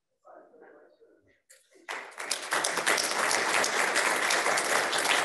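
Audience applauding, breaking into steady clapping about two seconds in after a faint lull.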